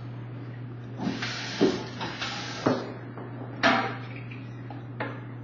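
Dishwashing at a kitchen sink: water from the tap rushes briefly, and dishes knock against each other and the sink a few times, over a steady low hum.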